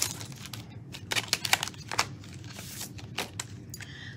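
Paper and plastic packaging of a set of cutting dies being handled: scattered light rustles, crinkles and taps as the package is picked up and opened.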